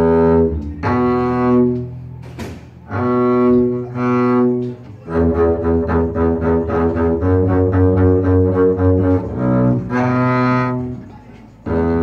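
Double bass played with the bow, unaccompanied: long held notes, then a stretch of shorter, quicker notes from about five to nine seconds in, then long held notes again.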